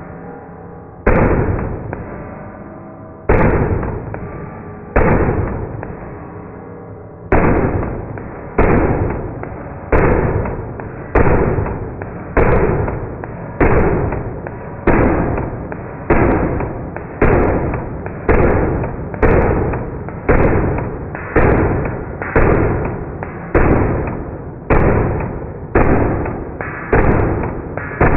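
Rapid gunfire from a 9mm AR-15 carbine with a 5.5-inch barrel and a linear compensator, the audio slowed down to match 240 fps slow motion. Each shot is a deep, drawn-out boom with a long fading tail. The shots come about one a second, more widely spaced for the first few shots and then at a steady pace.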